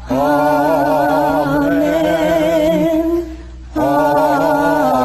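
A sung closing "Amen": a voice holds two long notes with vibrato over a lower held note, with a short break about three seconds in.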